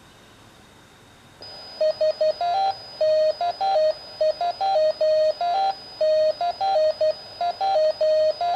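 Morse code tone from a Yaesu handheld radio's speaker, receiving a HackRF FM carrier keyed with a call sign. About a second in, the carrier comes up with a faint hiss and high whine; then the dots and dashes begin, harsh with overtones, the tone jumping between a few different pitches instead of holding one note. This is a programming bug in the transmitter code after it was switched from double to single-precision float.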